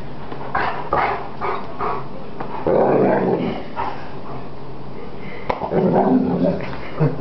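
Greater Swiss Mountain Dog growling and barking in play: a run of short barks, then two longer, louder growling bursts about three and six seconds in.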